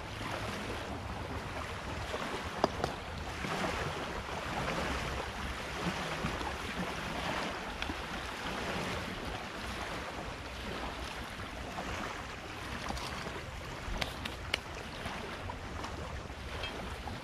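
Wind gusting on the microphone over a steady rush of wind and river water. A few sharp clicks stand out, the loudest about two and a half seconds in and two more a few seconds before the end.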